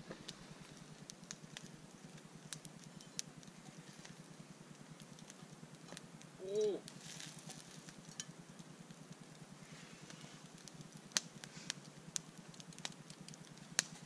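Wood campfire crackling, with sharp pops scattered throughout. About halfway through, a short pitched call that bends up and down is the loudest sound.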